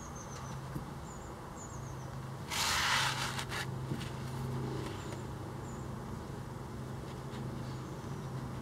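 Takamura R2 santoku knife slicing through a rolled-up terry towel on a wooden board: one rasping cut about two and a half seconds in, lasting about a second. A steady low hum and a few faint high chirps sit behind it.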